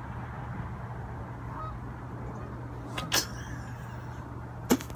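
A child coughing on a mouthful of dry ground cinnamon: one short cough about three seconds in and a sharper, louder one near the end, over a faint steady background hum.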